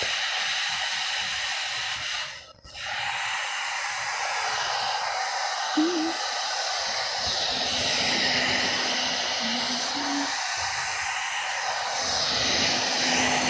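Handheld hair dryer blowing, a steady airy rush whose tone keeps shifting; it dips sharply for a moment about two and a half seconds in. The dryer is held well away from the hair to dry it.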